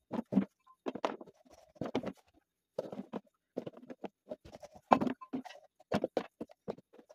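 Vegetable pieces for pickling, unripe melon, carrots and peppers, being dropped and pushed by hand into a large plastic jar: a quick irregular run of knocks and thuds of the pieces against the plastic and each other.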